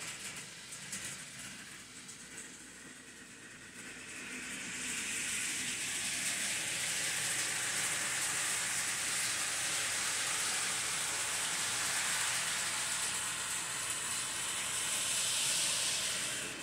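Model trains running on a home layout. About four seconds in, a steady high hiss swells in, holds, and cuts off suddenly at the end.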